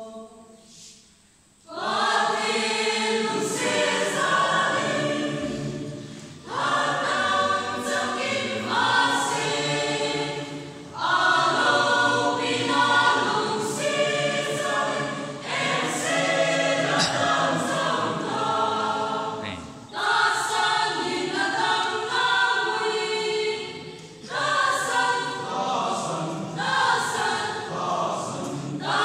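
Choir of women and men singing together in several parts, coming in about two seconds in after a brief lull and singing in long phrases with short breaks for breath.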